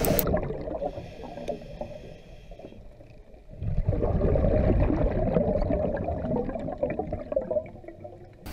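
Underwater audio of a scuba diver's regulator breathing. It is quieter at first, then from about three and a half seconds in comes a long burst of gurgling exhaled bubbles.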